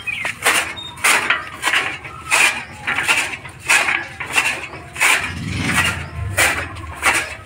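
Hand-cranked chaff cutter with a large spoked flywheel, its blades chopping green fodder: a sharp, regular chop about every two-thirds of a second as the wheel is turned.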